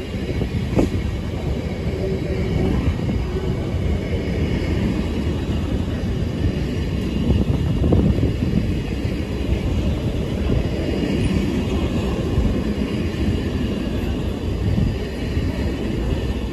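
Container freight train's wagons rolling past close by: a steady rumble of wheels on rail, with a few knocks from the wagons about a second in and again midway.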